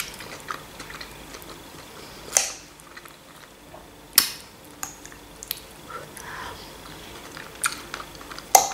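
Close-miked chewing of pasta and salad, with about four sharp clicks of a metal fork against the plate.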